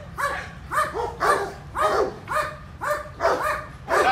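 German Shepherd barking over and over in a steady string, about two barks a second: guard barking on command in attack training.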